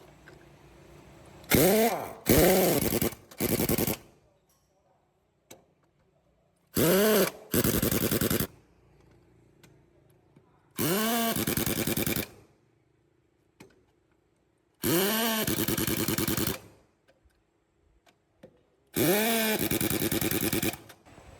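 Impact wrench run in eight short bursts of one to two seconds, each starting with a quick rise and fall in motor pitch before the fast hammering, as on a tractor's wheel nuts.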